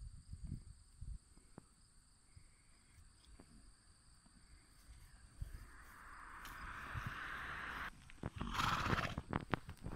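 A horse close by gives a short, loud snort about a second and a half from the end, amid a run of hoof thuds and knocks as it walks on the grass. Before that a hiss swells for a couple of seconds and cuts off suddenly.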